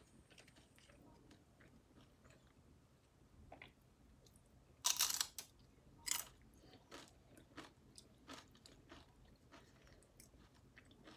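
Crisp crunching of homemade corn chips being bitten and chewed. There is a loud crunch about five seconds in and another a second later, then a run of smaller crackling chews.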